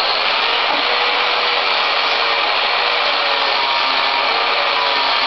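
Angle grinder with a flap disc running steadily, with a faint wavering motor whine, sanding the protruding end of a new wooden axe handle flush with the axe head.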